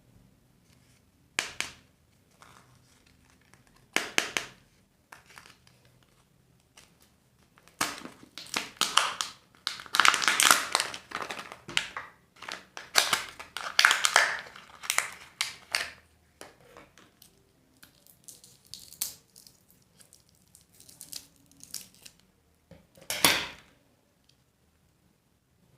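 Candy wrappers crinkling and tearing as surprise eggs are unwrapped by hand, in irregular bursts with a busy stretch in the middle and one sharp tear near the end.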